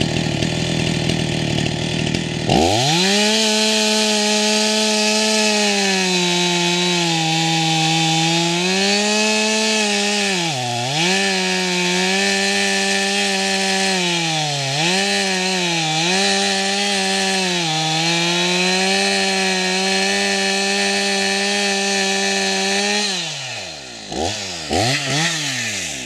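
Two-stroke chainsaw running, revved to full throttle about two and a half seconds in and held there while cutting wood, its pitch sagging briefly several times as the chain bites harder. Near the end the throttle is released and blipped a few times.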